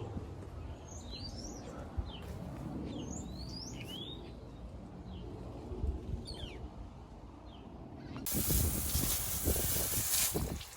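Birds chirping in short, scattered calls over a low outdoor rumble. About eight seconds in, the sound cuts abruptly to a louder, steady hiss.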